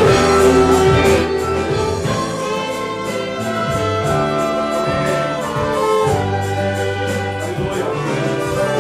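Small church orchestra with violins and other instruments playing a hymn's instrumental introduction in held chords, before the congregation comes in singing.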